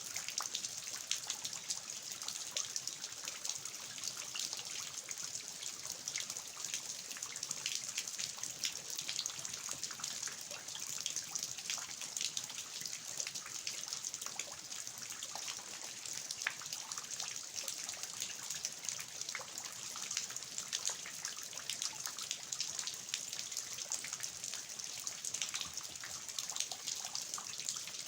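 Steady rain falling, with many small drops ticking and water trickling off the eaves of a traditional house.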